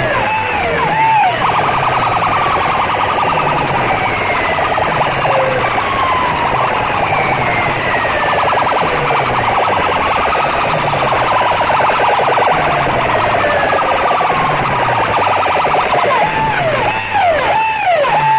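Electronic siren effects blasted through stacked horn loudspeakers of a competition sound system: quick, repeated up-and-down wails at the start and again near the end, with a buzzing tone and slow falling sweeps in between, over a repeating low pulse.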